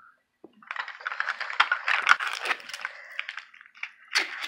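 Crinkling and crackling of plastic and paper wrapping being peeled off the miniatures from a Zuru Mini Brands capsule: a dense run of small rapid crackles, thinning out after a few seconds with a last cluster near the end.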